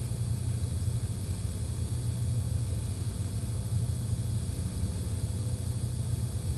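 Steady low rumble with a faint hiss: background room noise in a church sanctuary during a silent pause.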